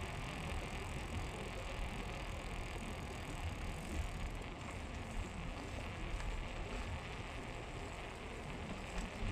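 Steady wind and road noise from riding a bike: an even rushing hiss with a low rumble underneath.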